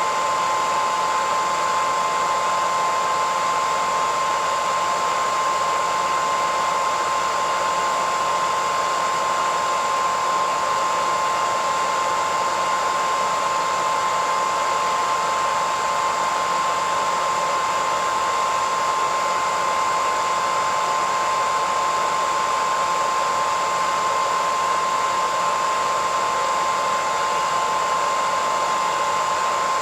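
Hair dryer running steadily on one setting: a continuous rush of blown air with a steady whine from its motor and fan.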